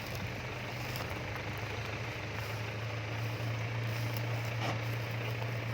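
Daihatsu Taft 4x4 with a swapped-in Toyota Dyna truck diesel engine, running steadily at low revs with an even low drone.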